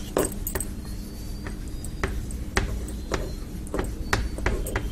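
Chalk tapping and scraping on a chalkboard during writing: a string of irregular sharp ticks, about two a second, over a faint steady hum.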